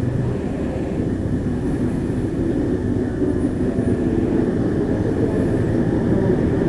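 Motorcycle running at low speed in dense street traffic, heard through a helmet-mounted camera: a steady low drone of engine and surrounding traffic that grows slightly louder.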